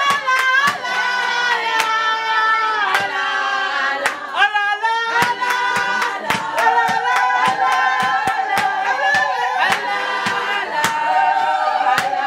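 A group of women singing together in chorus, with steady hand-clapping in time. A brief high wavering cry rises above the song about halfway through.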